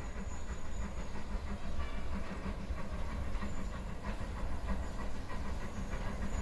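Metre-gauge steam locomotive U 29.101 Krutwig approaching some way off, its exhaust beats and steam hiss faint over a steady low rumble.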